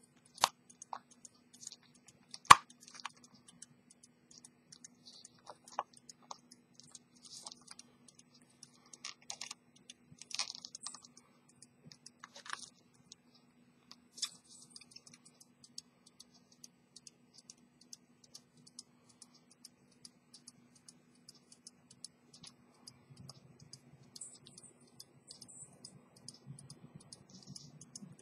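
Small, irregular clicks and taps of metal parts of an antique English fusee pocket watch being handled between the fingers, with two sharper clicks in the first few seconds.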